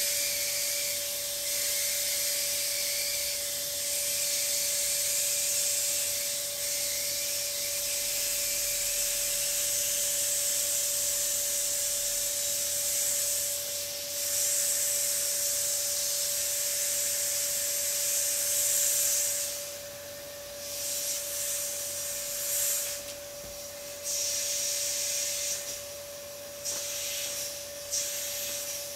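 Air hissing out of the open valve of a vinyl inflatable swan as it deflates, steady at first, then turning uneven and stop-start in short puffs for the last third.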